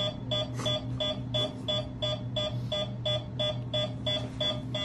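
Electronic beeping, short beeps repeating evenly about three times a second, over a steady low hum.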